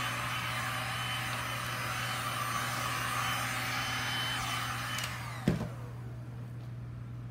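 Electric heat gun blowing steadily, then switched off about five seconds in, its fan whine falling as it winds down. A sharp knock comes half a second later, and a low steady hum continues underneath.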